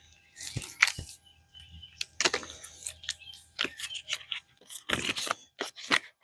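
Rustling and clicking as an electrical cord is handled and looped up, with sharp clicks about half a second and a second in.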